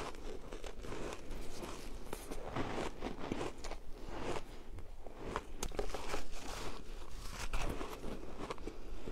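Coloured shaved ice being bitten and chewed, close to a clip-on microphone: a continuous run of irregular crunches and crackles as the frozen chunks break in the mouth.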